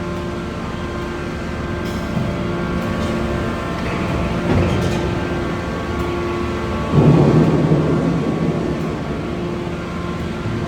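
Heavy forging-shop machinery running with a steady hum, swelling into a louder rushing surge about seven seconds in.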